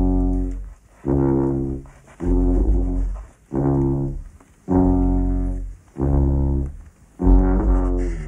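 A sousaphone-style tuba blowing seven loud, separate low notes, each held about a second with short gaps between them.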